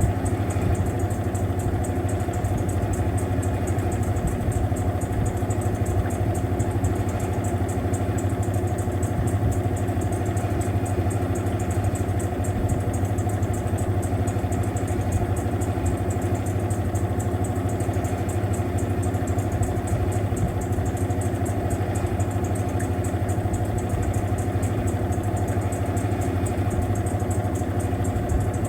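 Mueller Popmatic 8 kg washing machine running with a steady, loud motor hum that doesn't change.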